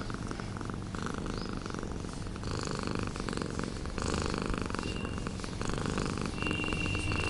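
Domestic cat purring steadily, close up, as it is stroked and rubs against the person petting it.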